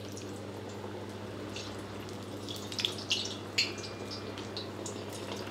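A rava vada (semolina fritter) deep-frying in a wok of hot oil, sizzling with many scattered crackles and pops that grow busier about halfway through. A steady low hum lies underneath.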